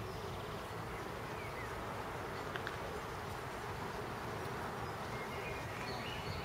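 Steady outdoor park ambience: an even, unbroken hum, with a few faint short high chirps about five to six seconds in.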